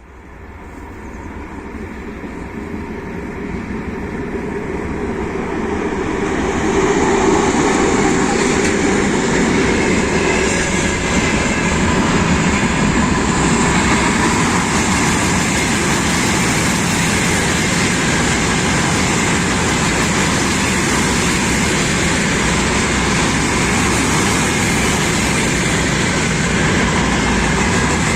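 Freight train passing, its wheels clattering on the rails. The sound builds over the first several seconds, then holds steady and loud.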